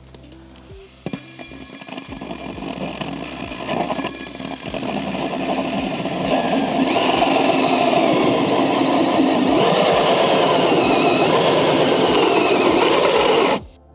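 Cordless drill driving a hole saw through painted wooden wall cladding. It starts about a second in and grows louder as the saw bites. In the second half the motor's whine wavers up and down as the saw loads and frees, then it stops abruptly near the end.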